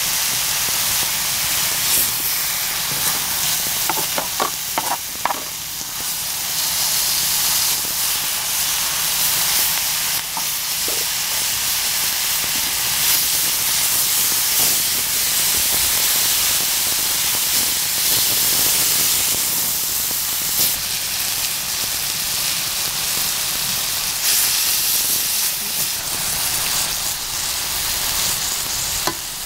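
Pork and kimchi sizzling steadily on a hot cast-iron cauldron-lid griddle as they are stir-fried with a wooden spatula and a metal spoon, with a few light clicks of the utensils about four to five seconds in.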